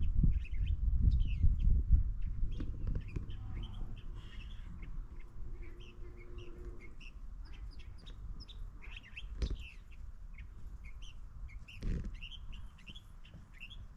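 Small birds chirping, with many short high calls repeating throughout. A low rumble is heard in the first few seconds, and two dull thumps come in the second half.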